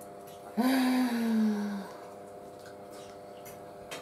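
A person's voice holding a single drawn-out "mmm" for just over a second, starting about half a second in, its pitch sliding gently down. A faint steady hum sits underneath, with a light click of cutlery near the end.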